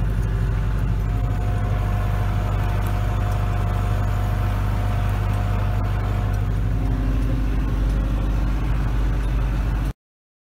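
Branson 5025C compact tractor's diesel engine running steadily at about 1,500 rpm in low range, third gear, pulling an arena drag, heard from the cab. A thin whine sits over it for a few seconds in the middle, and the sound cuts off suddenly near the end.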